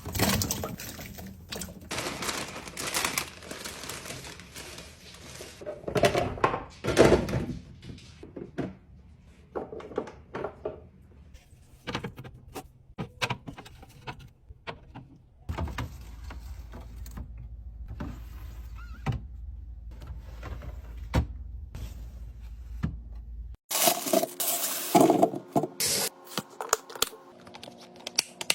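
Containers, jars and food packages being set down and handled while restocking a fridge: irregular knocks, clinks, taps and scrapes of plastic and glass, with a steady low hum under the taps in the middle stretch.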